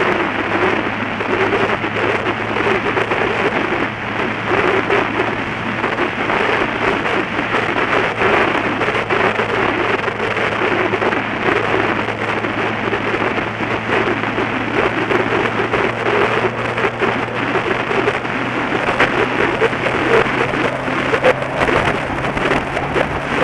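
Wind buffeting the microphone of a camera on a moving motorcycle, a loud crackly rush, with the bike's engine droning steadily underneath; the engine note climbs slightly near the end.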